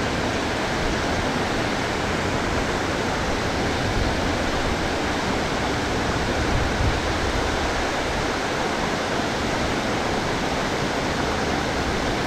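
Water pouring over a low concrete weir and churning below it: a steady, even rush.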